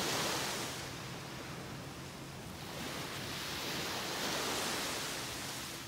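Small waves breaking and washing up onto a sandy beach. The surf swells twice, once at the start and again about three seconds later.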